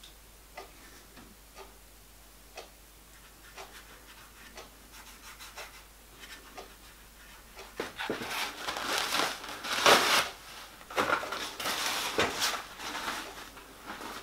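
Faint ticking about once a second, then from about halfway in a run of hand rubbing and scraping noises with a few knocks, as abrasive lapping compound is worked onto a slit plastic-pipe lap held in a lathe chuck.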